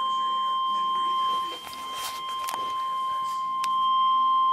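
Emergency Alert System attention tone: a single steady high tone, the 1050 Hz weather-radio warning signal, announcing a severe thunderstorm warning. It dips briefly in level about a second and a half in.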